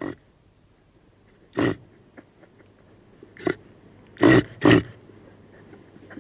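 Deer calling: five short, sharp calls, the last two in quick succession.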